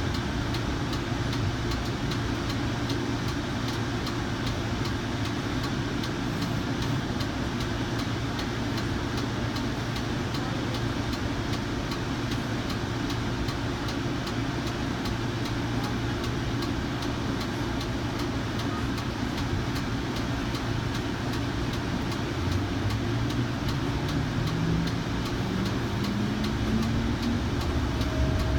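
Kinki Sharyo light rail vehicle heard from inside the car: a steady low hum of the car's equipment, then about three quarters of the way through the IGBT VVVF traction inverter and AC motors start a rising whine as the train pulls away and picks up speed.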